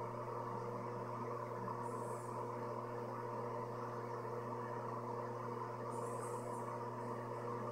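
A steady low mechanical hum with hiss, with two faint high chirps about four seconds apart.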